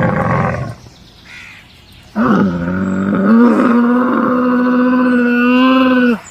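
A camel calling: a rough call that ends under a second in, then after a pause a long, drawn-out call that rises at first and holds at a steady pitch until near the end.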